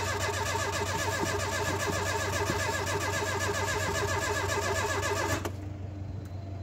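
Starter motor cranking an old car's cold petrol engine in an even, rapid rhythm without it catching, stopping abruptly about five and a half seconds in.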